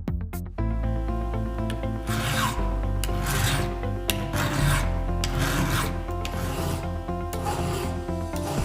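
A file rasping across a chainsaw chain's cutters in about five strokes, roughly one a second, starting about two seconds in, over background music.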